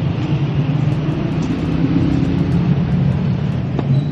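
Street traffic: a motor vehicle's engine running as a steady low drone, with a sharp click near the end.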